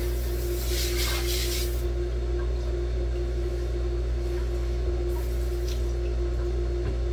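Electric water pump running on without shutting off, a steady hum with a constant drone. The owner suspects it is not drawing water through a partly frozen, slushy intake line. A brief hiss sounds in the first second and a half.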